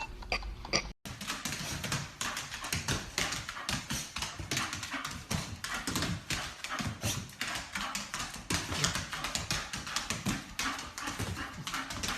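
A dog making rapid, short, noisy sounds, several a second, with a break about a second in.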